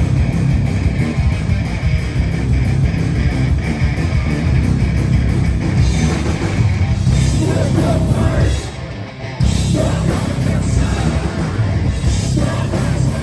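Live heavy metal/hardcore band playing loud, with distorted electric guitars and a drum kit. The music cuts out for under a second about nine seconds in, then comes crashing back in.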